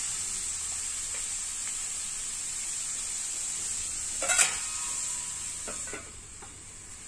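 Onion, tomato and masala sizzling in a metal pan while being stirred with a metal spoon. About four seconds in the spoon knocks the pan with a ringing clank. Near the end a steel lid is set on with a couple of knocks, and the sizzle goes quieter.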